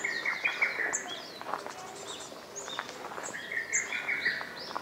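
Wild birds singing: a fast run of short notes at the start and again about three seconds in, with high, short chirps and whistles between.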